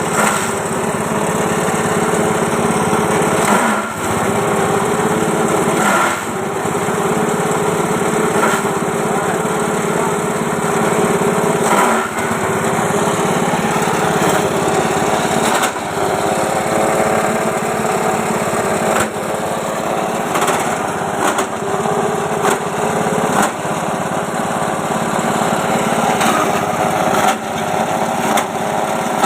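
Multi-function chopper machine driven by a small engine, running steadily. Brief knocks and short dips in level come every few seconds.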